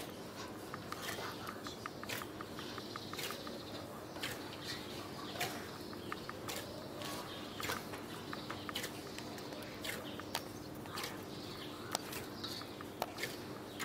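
Hands kneading soft, sticky bread dough in a stainless steel bowl: irregular squelching and sharp clicks as the dough is pressed and folded. A faint steady hum runs underneath.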